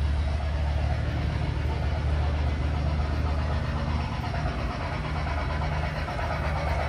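A steady low engine-like drone that eases off about four seconds in.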